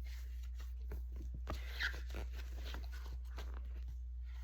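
Steady low electrical hum with scattered faint clicks and light rustles, and one brief soft vocal sound about two seconds in.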